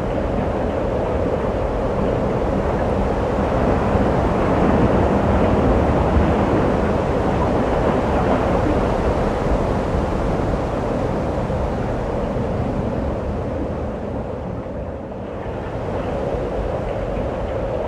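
Blizzard wind blowing against the phone's microphone, a steady low rushing noise that swells a little and dips briefly near the end.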